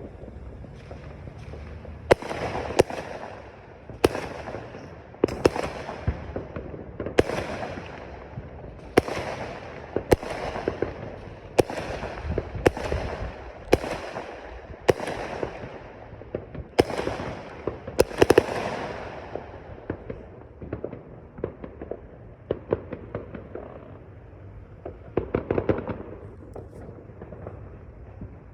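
Fireworks going off in a rapid series of sharp bangs, about one a second, each followed by a short crackling trail. After that only scattered crackles remain, with a brief cluster of pops near the end.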